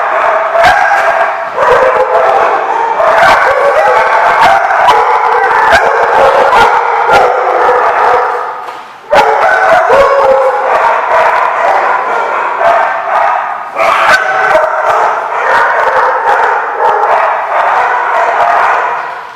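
Several dogs barking and yipping at once in a dense, overlapping din that hardly lets up, with a brief lull a little before the middle.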